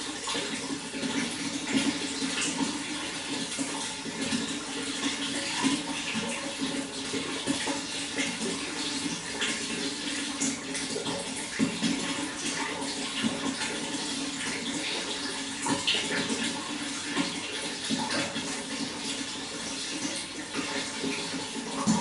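Running water flowing and splashing steadily, with many small irregular splashes over a continuous rush.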